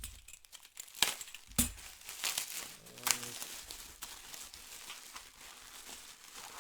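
Packaging being handled during an unboxing: plastic crinkling and a few sharp clicks and knocks of small parts, the loudest about a second in, a second and a half in and three seconds in.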